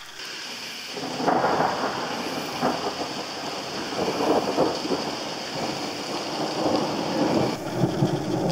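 A long roll of thunder that starts about a second in and swells and ebbs in waves, over steady rain.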